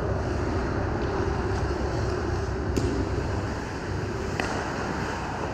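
Ice hockey play at the rink: two sharp clacks of hockey stick and puck, about a second and a half apart, over a steady rumble of arena noise.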